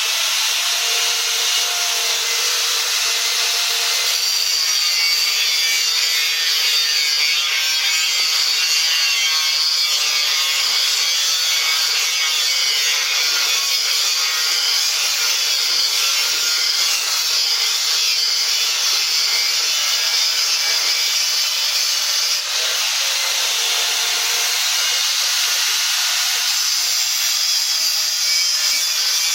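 A power tool cutting, a loud, steady noise that runs without a break, with a brief dip about 22 seconds in.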